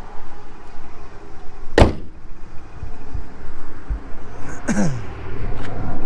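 Hood of a 2003 Mercury Grand Marquis slammed shut: one sharp bang about two seconds in, with a faint click and a short sliding sound later on.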